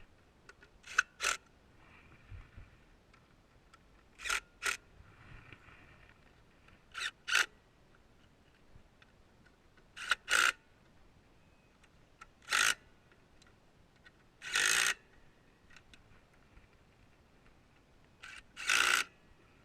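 Short scraping strokes of a hand tool being worked by hand, mostly in quick pairs, repeating every two to three seconds. The later strokes are a little longer.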